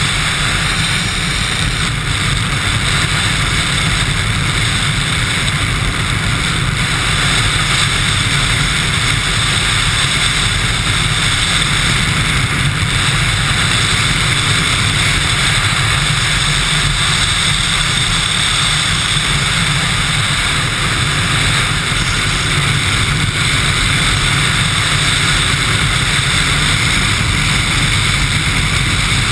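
Chopper-style motorcycle riding along at a steady speed: a loud, even rush of engine and wind noise that holds without change.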